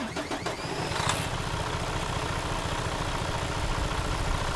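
A vehicle engine starting, with a few sharp catches in about the first second, then idling steadily.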